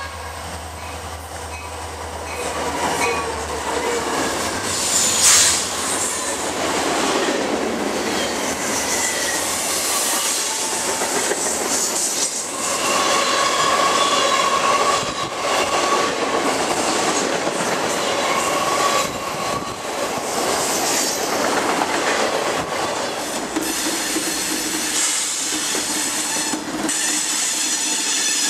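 Freight cars rolling past at speed: a steady rumble and clatter of steel wheels on rail, with wheel squeal ringing out several times in the middle. Near the end a second train's Norfolk Southern diesel locomotives come alongside on the other track.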